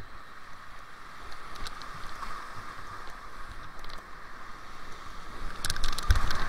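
Rushing whitewater of a creek rapid heard from a kayak running it, a steady roar of water with sharp splashes against the boat and the camera. The splashing grows thickest and loudest near the end as the boat drops into the foaming water.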